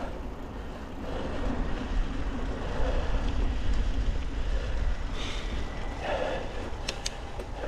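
Steady low rumble of wind on the microphone and tyres rolling over the trail as a mountain bike is ridden, with a couple of sharp clicks near the end.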